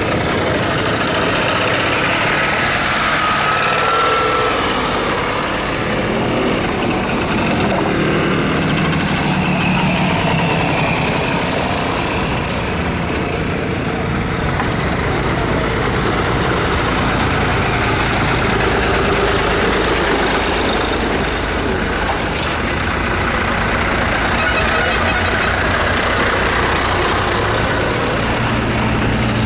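Tractor engines running, loud and steady.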